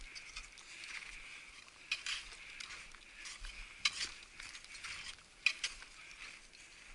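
A climber's steps crunching and scraping in snow on a steep slope, a gritty swell about once a second with a few sharper clicks, the clearest about two, four and five and a half seconds in.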